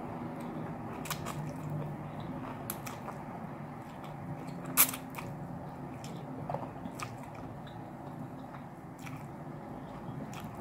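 A person chewing and biting food from a seafood ramen meal, close to the microphone, with scattered small mouth clicks. One sharp, loud click comes a little before halfway. A low steady hum runs underneath.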